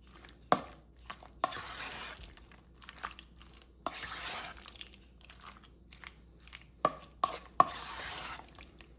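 A spoon stirring thick, creamy potato salad in a bowl, folding in shredded cheddar. The spoon knocks against the bowl several times, and three of the knocks are followed by a scraping stroke of about a second through the mixture.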